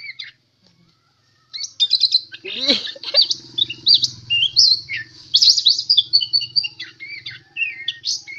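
Caged oriental magpie-robin (kacer) singing a fast, varied song of whistles, slurs and trills with mimicked bird phrases woven in, starting after a brief pause about a second and a half in.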